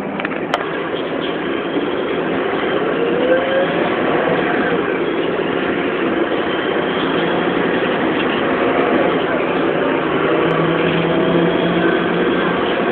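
Cabin noise of a BMC 220 SLF low-floor city bus under way: the engine and road noise run steadily, with a tone rising in pitch about three to four seconds in.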